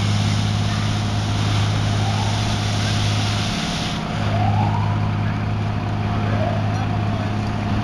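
A fire hose spraying water onto a smouldering hay load, a loud hiss that drops away about four seconds in, over the steady low hum of a large engine running.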